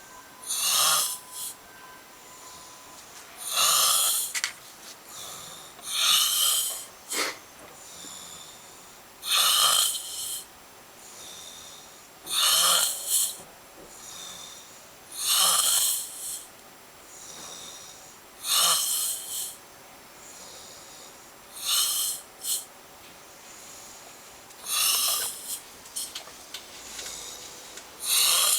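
A sleeping person snoring loudly, one snore about every three seconds, around ten in all, with fainter breaths in between.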